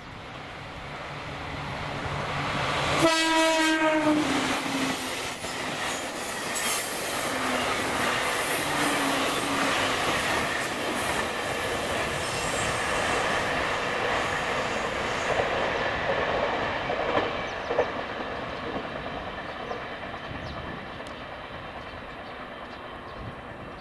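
JR Kyushu 813 and 817 series electric train passing: a short horn blast about three seconds in, then the steady rumble and clatter of wheels on rail that grows loud as the cars go by and fades away near the end.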